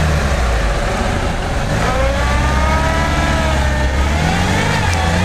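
Lada Niva engine running hard in low gear as the wheels spin in sticky mud, a steady drone with a whine that rises and falls in pitch from about two seconds in. The tyres are clogging with slick mud and the car can barely make headway.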